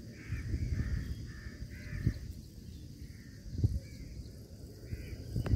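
Crows cawing in a run of short harsh calls, then a few scattered caws, over wind rumbling on the microphone. A few sharp bumps, the loudest sounds, come about two seconds in, near the middle and near the end.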